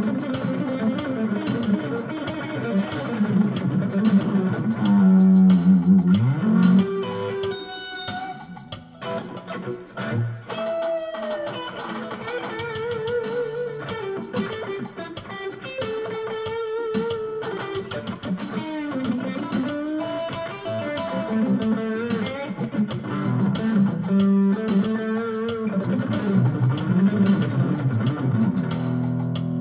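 Electric guitar with ceramic pickups, played through a Cube-10 practice amp on its crunch-mode Classic Stack setting: an improvised lead with held notes shaken by vibrato, over an Alesis drum machine playing a Latin-funk beat.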